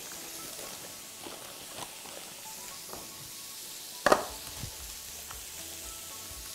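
Parchment baking paper rustling and crinkling as a pastry is pressed into a metal baking tray, over a steady hiss, with one sharp knock about four seconds in.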